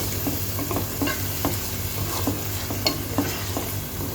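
Spatula stirring and scraping a spice paste of fried onions, potatoes, ginger-garlic paste and ground cumin and coriander as it sizzles in an open pan, with frequent small clicks of the spatula against the pan over a steady low hum. The masala is being fried down on medium heat after a splash of water.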